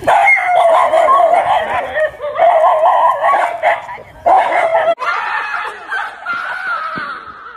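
Several dogs barking and yelping in a frenzy, alarm barking at a stuffed toy tiger. About five seconds in the sound cuts abruptly to excited human voices shouting and laughing.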